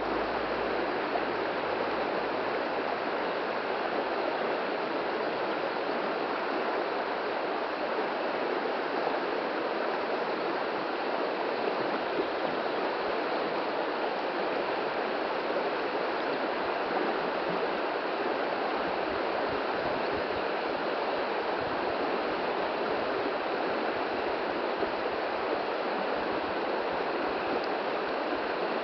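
Shallow river running steadily over a gravel and stone bed, an even rushing and babbling of water.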